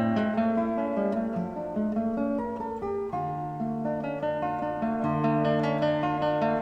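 Background music played on acoustic guitar, plucked notes over held bass notes.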